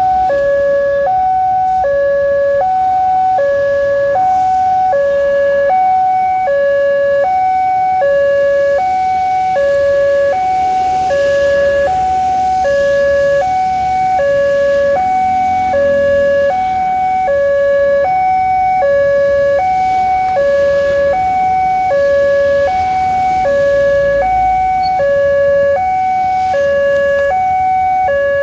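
Railway level-crossing warning alarm: a loud electronic two-tone signal switching between a lower and a higher pitch about once a second, steady and unbroken, sounding while the crossing is closed for a train.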